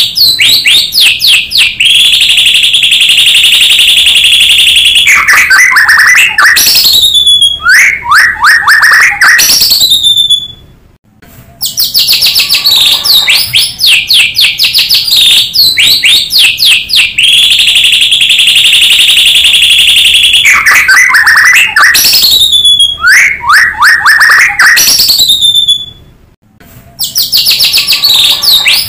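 White-rumped shama song, loud and close, as from a lure recording. Rapid chirping trills, a held whistle of about three seconds, then slurred falling notes and swooping calls. After a brief break the same song sequence repeats, a loop about every fifteen seconds.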